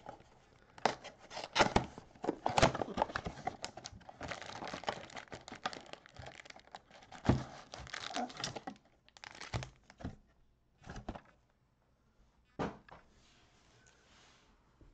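A trading-card mega box being opened by hand: its wrapping and cardboard crinkling and tearing in a dense run of crackles and sharp clicks, then foil packs pulled out, with a few separate light knocks from about seven seconds in.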